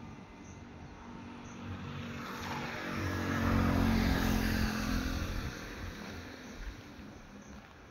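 A motor vehicle passing by. Its engine swells to a peak about three to four seconds in, then fades away.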